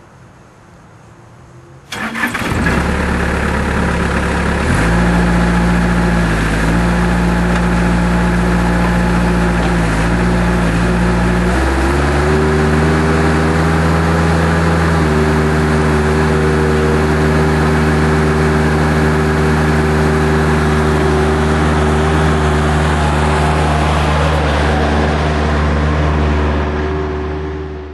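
2000 Bobcat 753 skid steer's four-cylinder Kubota diesel starting up on freshly changed oil about two seconds in, then running steadily. Its engine speed steps up twice, at about five and about twelve seconds.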